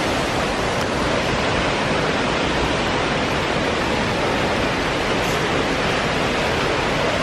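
Rushing water of Kumu Falls, a steady, even rush of noise.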